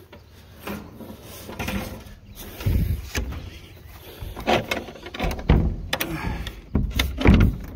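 Hinged wooden coop door, reinforced with 2x4s, being handled and swung shut: a run of irregular knocks and thumps, the heaviest near the end.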